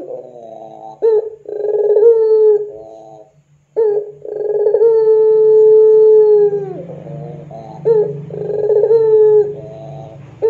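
Puter pelung, a long-cooing Barbary (ringneck) dove, cooing repeatedly in full voice. Each long, held coo drops away at its end and runs into quick rolling, stuttering notes. There is a short break about three seconds in.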